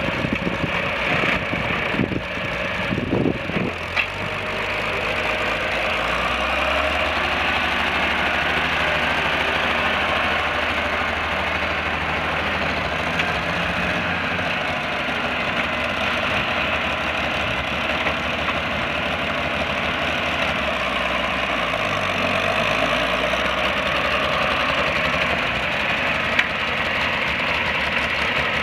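Six-cylinder gasoline engine of a 1963 Farmall 706 loader tractor running steadily as the tractor drives and turns. There are a few knocks in the first four seconds.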